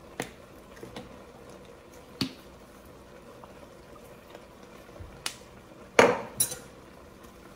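A handful of sharp clicks and knocks as seasoning shakers and a hot sauce bottle are handled, capped and set down on a granite countertop. The loudest knock comes about six seconds in, as the hot sauce bottle is put down.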